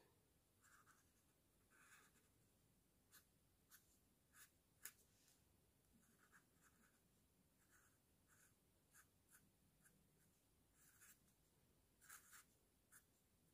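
Black marker pen drawing on kraft paper: faint, short strokes with brief pauses between them, and a few sharper ticks.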